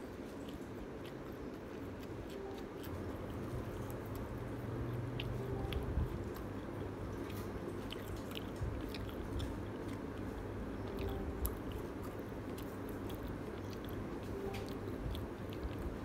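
A person chewing a mouthful of Hawaiian pizza up close, with many small wet mouth clicks and smacks.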